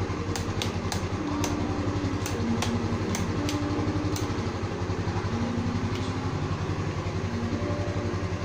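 Motorstar Easyride 150 R2's single-cylinder four-stroke engine idling steadily, with a run of light clicks over the first four seconds.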